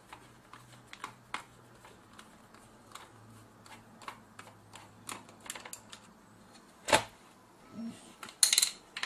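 Scattered light clicks and taps of plastic and metal as hands work the casing of a partly disassembled Sony HVR-S270E camcorder, with a sharp knock about seven seconds in and a quick burst of loud clicks near the end.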